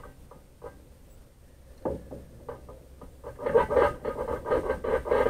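A few light scrapes and taps, then from about three seconds in a dog panting rapidly, about four to five breaths a second.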